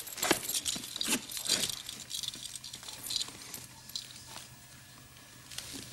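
Soft, irregular pats and rustles of a powder puff being dabbed onto a face, thinning out toward the end.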